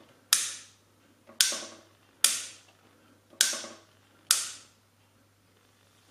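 A light switch clicked on and off five times, about a second apart, each click sharp with a short fading tail: the smart bulb's power being cycled to put it into pairing mode.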